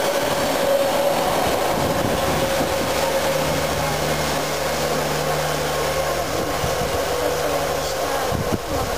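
Railway passenger coaches rolling along the track, a steady rush of wheel and rail noise with a faint steady tone running through it.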